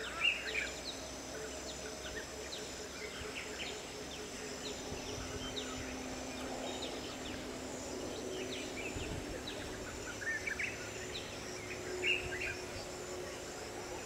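Forest ambience: small birds chirping and calling here and there, busiest at the start and again about ten to twelve seconds in, over a steady high-pitched insect drone.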